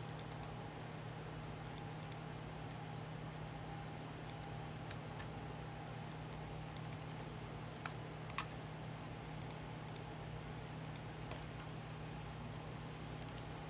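Faint, scattered clicks of a computer keyboard and mouse, two of them a little louder just past the middle, over a steady low hum.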